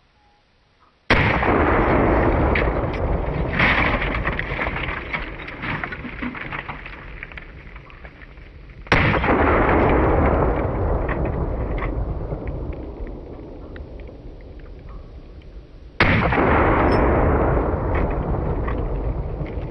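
12-gauge Mossberg 500 pump shotgun firing slugs: three loud shots about seven seconds apart and a smaller bang a few seconds after the first. Each boom trails off slowly over several seconds.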